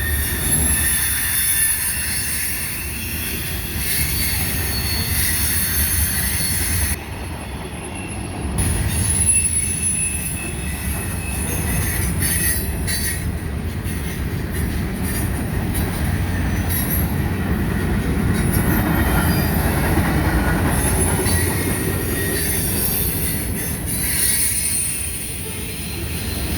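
Cars of a mixed freight train rolling past, with a steady low rumble and the steel wheels squealing against the rails in thin high tones.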